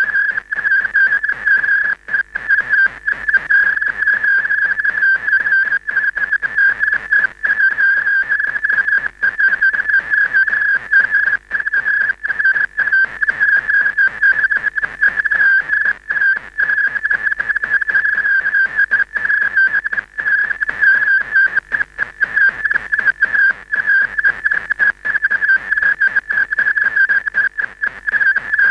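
A steady, high-pitched electronic tone that wavers slightly in pitch and drops out for a split second many times.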